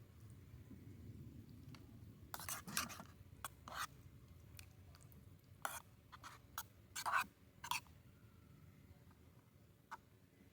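A series of short, light clicks, taps and rustles from small objects being handled close by, about a dozen spread over several seconds, some in quick pairs.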